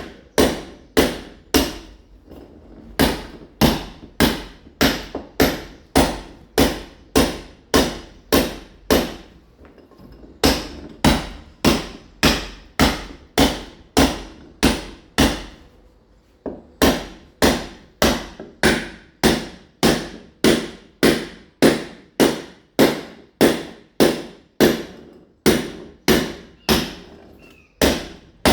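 Mason's club hammer striking a masonry wall again and again, chipping (roughening) its surface to prepare it for ceramic tile. Sharp, steady blows come about two a second, with a few short breaks.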